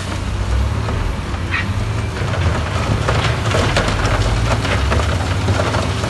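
Diesel engine of a heavy earthmoving machine running steadily with a low hum, with many scattered cracks and clatters of rock and stone being pushed and crushed.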